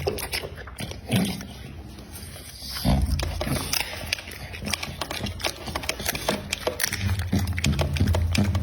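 American Pocket Bully dog chewing and crunching raw meat, with a run of wet, clicking bites. A low rumble from the dog comes in about three seconds in and again near the end.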